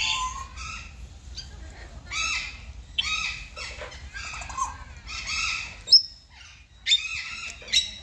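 Birds chirping and calling in short, high-pitched bursts, one after another, with a sharp whistled note near the end.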